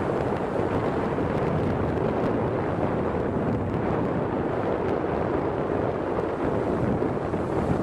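Steady wind buffeting the microphone, a constant rushing noise with no distinct events.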